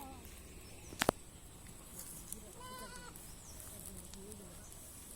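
Black Bengal goats bleating: a short call at the start, a higher wavering bleat about two and a half seconds in, and a lower one near the end. A sharp double click about a second in is the loudest sound.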